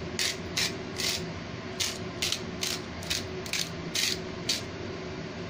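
Hand-twisted salt grinder grinding salt crystals: a quick run of short scratchy ratcheting twists, about three a second, with a brief pause near one and a half seconds, stopping about four and a half seconds in.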